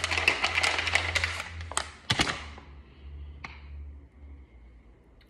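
Crumpled paper popcorn bag crinkling and rustling as it is handled, with a couple of sharp crackles about two seconds in, then only faint ticks.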